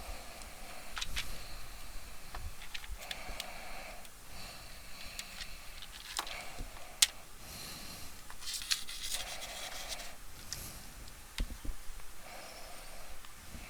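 Handling noises of a power cord being threaded through the hole in a stage light's housing: scattered clicks and short scrapes, with a sharper click about seven seconds in.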